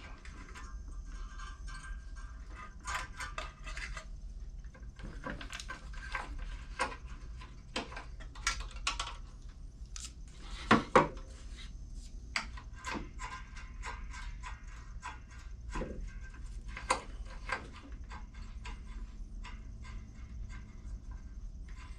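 Small metal parts and hand tools clicking, tapping and clinking while a Briggs & Stratton mower engine's carburetor and governor linkage are put back together, with two louder knocks close together about halfway through.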